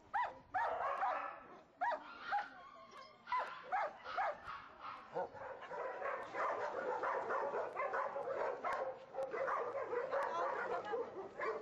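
Dogs barking in shelter kennels: a run of short, separate barks for the first few seconds, then a denser, overlapping chorus of barking.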